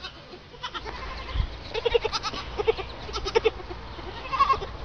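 Young goats bleating, a run of five or six short, quavering calls in quick succession.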